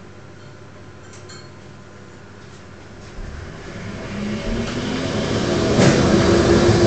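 Workshop dust collector switched on about three seconds in: its motor and fan spin up with a rising whine that grows louder over a couple of seconds, then run steadily.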